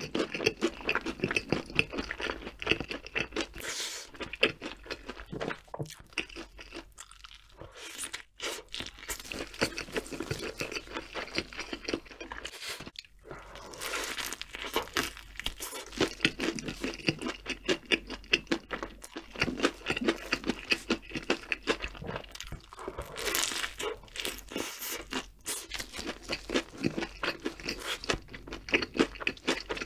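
Close-miked eating: a person bites and chews burgers, the first a crispy fried chicken burger, with a crunch. The mouth sounds are dense and irregular, with a few short pauses between bites.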